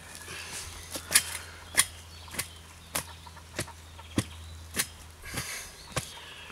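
A long-handled tool rammed again and again into the soil around a steel fence post, tamping the fill firm: about ten sharp strikes, a little under two a second.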